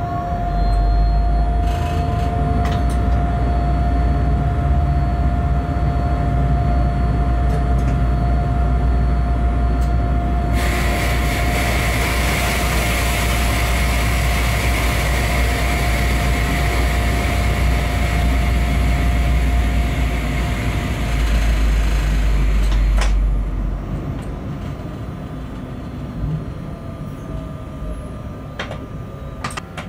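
Electric freight locomotive running under way, heard from inside the cab: a heavy low rumble with a steady whine, and a hiss that joins abruptly about a third of the way through. About three quarters through the rumble and hiss stop together, leaving quieter running.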